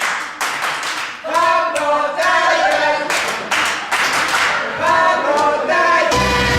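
Wrestling crowd chanting together in a sing-song way while clapping in rhythm, about two or three claps a second. Near the end a deep low sound comes in under the chant.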